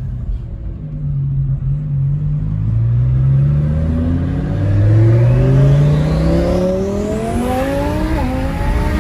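Twin-turbocharged Lamborghini Huracán V10 with a straight-pipe exhaust accelerating hard, heard from inside the cabin. The engine note climbs steadily for several seconds with a thin high whine rising alongside it, then dips briefly at an upshift near the end. The pull is on low boost and not at full throttle.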